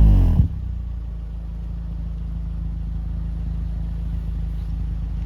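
Car engine heard through an APEXi aftermarket rear silencer: the revs fall away and it settles about half a second in to a steady low idle.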